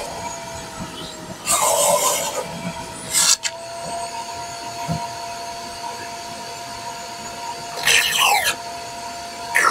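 VacMaster 5-gallon, 3-peak-horsepower wet/dry shop vacuum running with a steady whine while sucking up water, with a few short, louder bursts of rushing noise, about 1.5 s in, 3 s in, 8 s in and at the very end.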